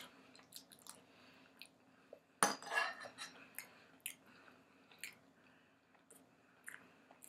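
Soft chewing of food, with small clicks of a metal fork on ceramic dishes and one louder clink about two and a half seconds in.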